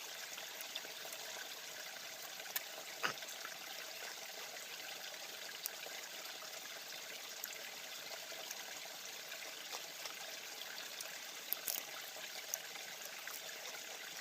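A small forest stream babbling and trickling steadily over stones, with a few brief sharp clicks along the way.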